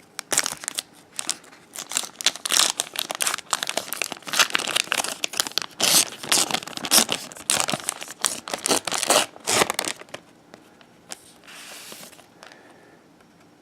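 A wrapper crinkling and tearing as an oversized box-loader pack of trading cards is opened by hand: a dense run of crackles for about ten seconds, then it goes much quieter with a short soft hiss near the end.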